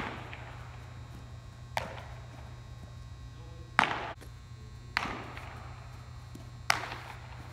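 Five sharp smacks of a baseball fielding drill, with the ball being hit and caught in a glove, each echoing through a large indoor hall, over a steady low hum.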